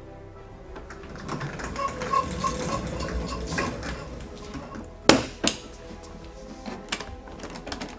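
Rattling clatter of a large wheeled plastic transport case being moved, then two sharp knocks about five seconds in, over background music.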